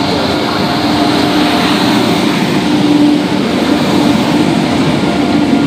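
WAP-7 electric locomotive rolling past close by, a steady hum over the noise of its wheels on the rails.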